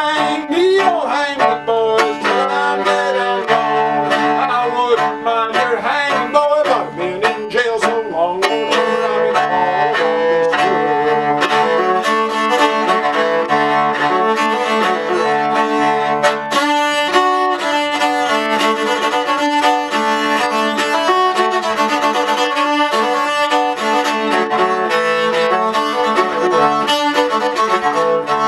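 Bowed mountain dulcimer playing a melody with the bow, long held notes sounding over a steady drone string.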